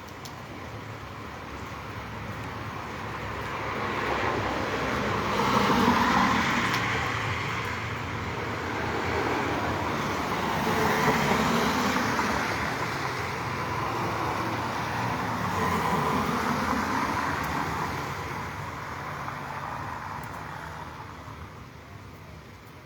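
Road traffic: vehicles passing one after another, the tyre and engine noise swelling and fading about three times.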